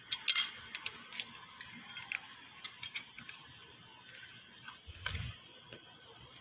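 Steel engine parts, the crankshaft sprocket and plate, clinking and ringing as they are handled, with a cluster of sharp clinks at the start, scattered light clicks after, and a dull thump about five seconds in.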